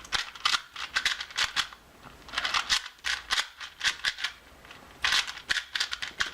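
A new, lubricated Cyclone Boys 2x2 plastic speed cube being turned quickly by hand: rapid clicking of the layers in three spurts with short pauses between.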